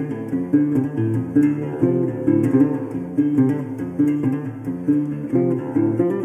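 Background music: a guitar playing a run of plucked notes.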